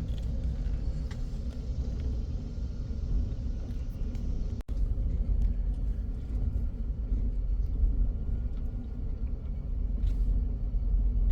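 Steady low rumble of a truck towing a travel trailer, moving slowly, heard from inside the cab.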